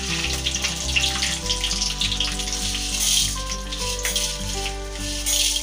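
Urad dal and chana dal frying in hot oil in a kadai, a steady sizzle with small crackles. Background music with sustained notes plays over it.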